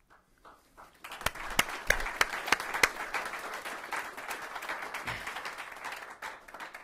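Audience applauding: a few scattered claps, then the clapping fills in about a second in and tapers off near the end.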